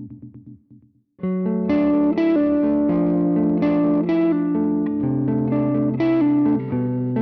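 Electric guitar played through an effects plugin preset: a pulsing pattern fades out in the first second, then after a short gap heavily processed chords ring out, changing every second or two.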